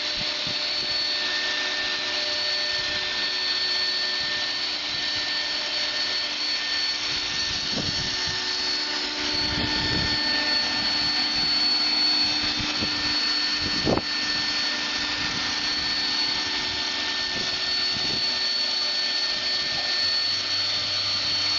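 EXCITECH CNC router's spindle running while milling a 3D model, a steady high whine over an even hiss, with a few low knocks and one sharp click about two-thirds of the way through.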